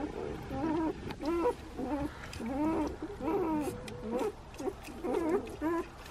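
A litter of newborn Volga Wolfhound puppies whimpering and squeaking: many short calls, each rising and falling in pitch, overlapping one after another.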